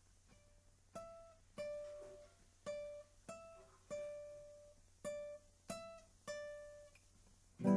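A plucked string instrument playing a slow run of single notes, each picked and left to ring and fade, starting about a second in. Right at the end a loud full chord is strummed.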